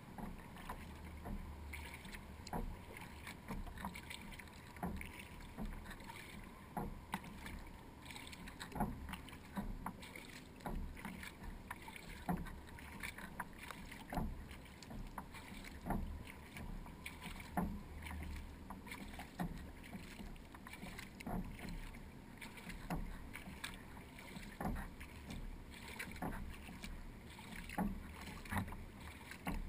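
Kayak paddle strokes on calm water: the blades dip, pull and splash, with drips, about once a second, heard from a camera on the kayak's bow deck. A low steady rumble sits under the strokes.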